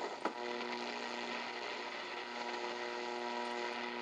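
R-390A tube communications receiver's audio output while tuned between AM broadcast stations: a steady low buzz over static hiss, with a brief swoop in pitch near the start as the dial passes a signal.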